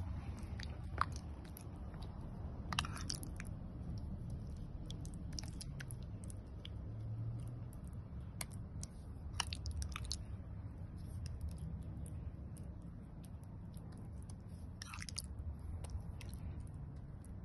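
A metal spoon spreading thick jam over pie dough: soft sticky squelches and scrapes with scattered sharp ticks, over a steady low hum.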